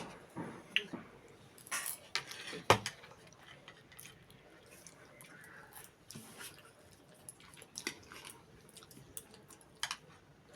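Someone eating close to the microphone: quiet chewing with scattered short clicks and taps, the sharpest about three seconds in.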